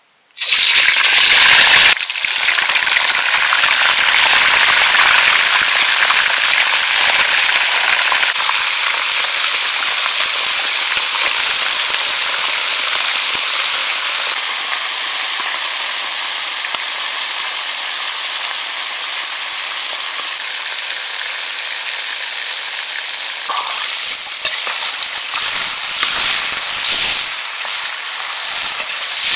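Pieces of snake meat dropped into hot oil in a steel wok, bursting suddenly into loud, steady sizzling as they deep-fry.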